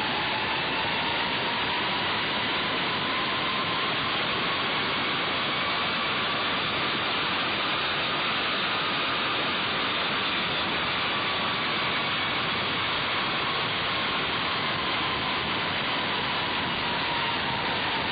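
Steady rushing noise inside an Amtrak locomotive cab as the train runs at speed, with a faint whine that rises and falls slowly in pitch.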